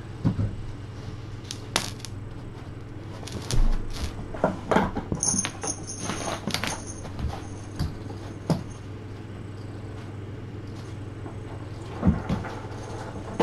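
A cat playing with a feather wand toy: irregular thumps, taps and small rattles as it pounces and scrambles, with clusters of them in the middle and near the end, over a steady low hum.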